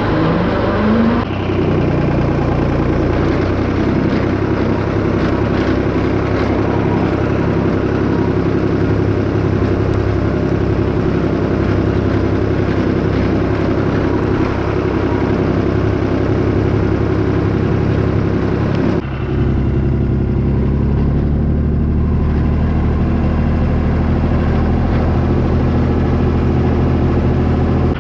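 Small red farm tractor's engine revving up in the first second, then running steadily under load as it pulls on the recovery chain. About two-thirds of the way through, the engine note changes abruptly to a lower, steadier drone.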